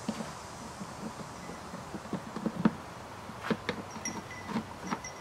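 Flathead screwdriver loosening the screw on the plastic maintenance cover of a Honda EU2000i inverter generator, and the cover being worked loose: scattered small clicks and knocks of metal on plastic, with a few louder knocks a little past halfway.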